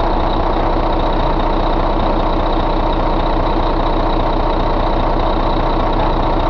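A 2014 Volvo D13 inline-six diesel engine idling steadily, with a thin, steady high whine over the engine note.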